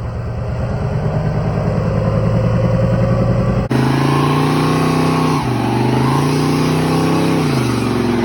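Vehicle engine running with a low, even pulse; after an abrupt cut about two-thirds of the way in, an engine pulling under load, its pitch dropping and climbing again twice as it runs through the revs.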